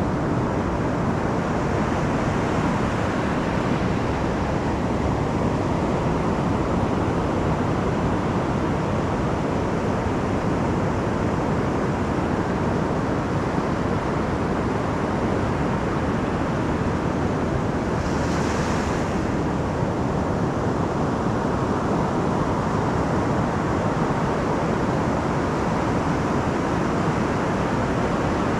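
Pacific surf breaking offshore and washing up a sandy beach, a steady rush of waves, with a brief brighter hiss about two-thirds of the way through.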